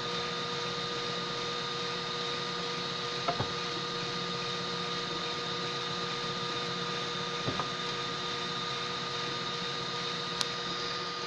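Homemade DIY 3D printer running mid-print: a steady hum with a constant high whine from its motors, broken by a pair of short clicks about every four seconds.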